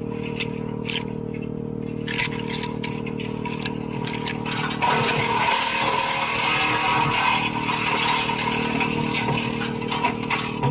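WoodMaxx MX-8800 PTO-driven wood chipper running off a Kubota L3901 tractor's diesel engine, a steady drone. About five seconds in it gets louder and rougher, with knocks and rattles, as apple prunings are fed in and chipped.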